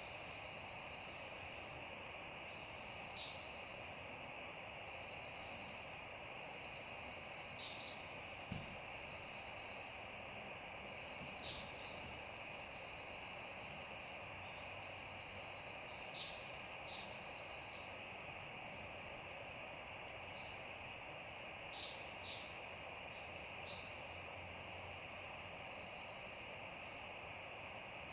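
Night insect chorus, crickets trilling: a steady high-pitched trill over a soft hiss, with brief chirps every few seconds. About halfway through, another insect joins with short, evenly spaced high pulses.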